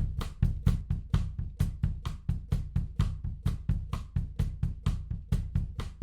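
Recorded drum kit playing a steady, fast beat of about five or six hits a second, with kick drum and snare under a constant hi-hat, played back through a tape emulation plugin.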